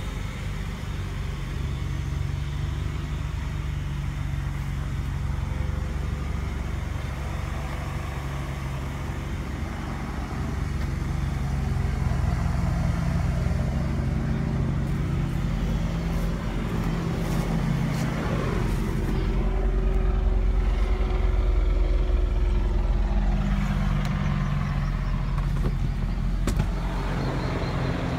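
Steady idle of a Toyota Celica GT-S's 2ZZ-GE four-cylinder engine, under the low drone of a helicopter flying overhead. The drone grows louder about halfway through and is loudest in the later part.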